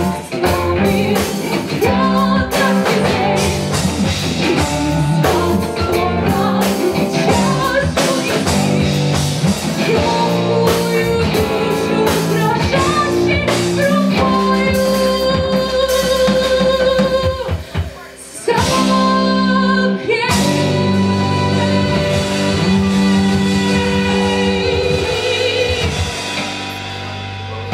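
Live band playing with a woman singing lead over keyboards, electric guitar, bass and drum kit. About two-thirds of the way through the band stops briefly, then comes back with long held chords under the singer's long, wavering notes.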